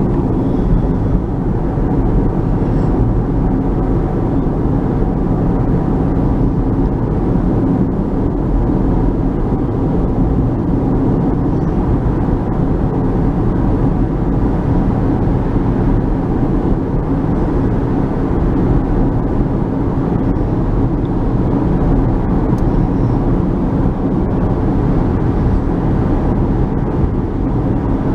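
Steady road and engine noise heard from inside a moving car's cabin, an even low rumble with a faint hum and no breaks.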